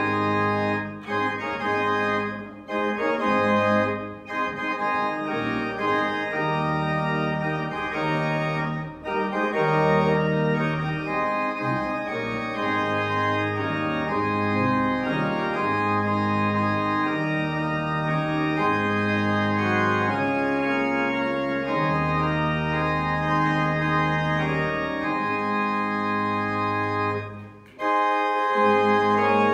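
Church organ playing the postlude after the dismissal: sustained chords over long held bass notes. The music breaks off briefly near the end, then starts again.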